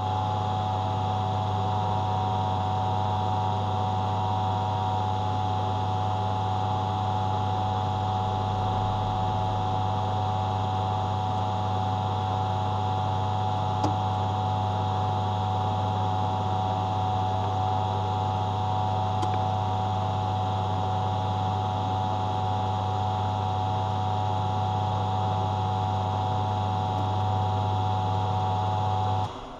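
Metal lathe running steadily with a strong motor hum while a parting tool cuts through a bolt spinning in the chuck, parting off a threaded insert. The machine stops shortly before the end.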